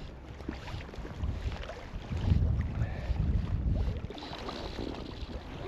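Wind gusting over the microphone, swelling and easing unevenly, with choppy lake water slapping against an inflatable float tube.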